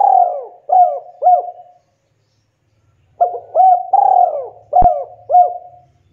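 Spotted dove (tekukur) cooing: two phrases of several rounded coos, with a pause of about a second and a half between them. A brief sharp click sounds during the second phrase.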